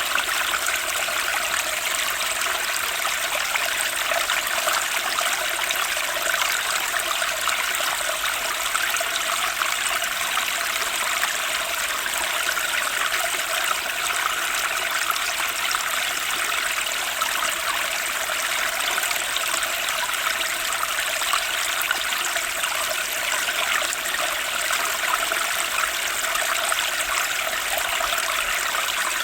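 Turbulent spring stream rushing and splashing over stones, a steady, even rush of water with no breaks.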